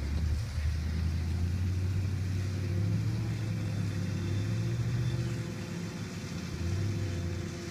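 Engine of farm harvesting machinery running steadily with a low hum, easing off slightly about six seconds in before picking back up.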